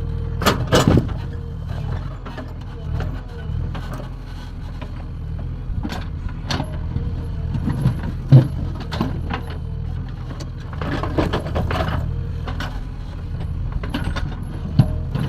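JCB 3DX backhoe loader's diesel engine running steadily, with scattered metallic clanks and knocks from the bucket digging into mud and stone; a sharp knock a little past the middle is the loudest.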